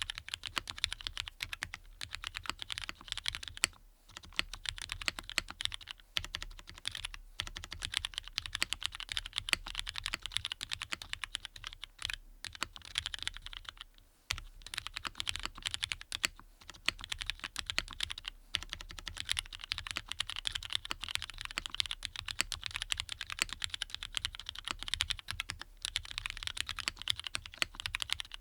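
Fast, continuous typing on a mechanical keyboard with lubed Cherry MX Black linear switches on an aluminium plate, keystrokes clacking in quick succession with a few brief pauses.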